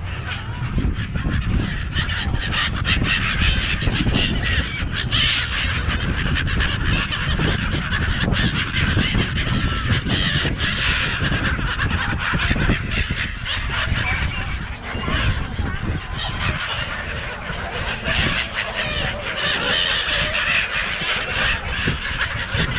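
A large flock of gulls calling all at once, many overlapping squawks, over a steady low rumble.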